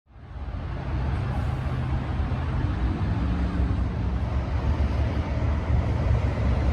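A vehicle running steadily, a loud low rumble with road noise, coming in suddenly at the start.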